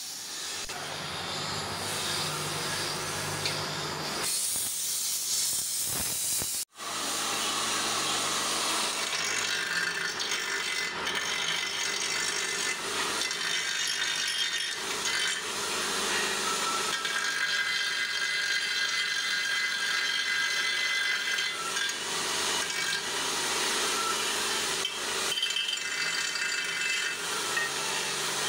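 A power tool running steadily with a rasping noise, with a thin high whine over it from about nine seconds in until about twenty-two seconds. The noise drops out for an instant about seven seconds in.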